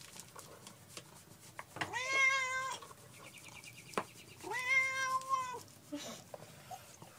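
Tabby cat meowing twice, each meow a long, level call of about a second.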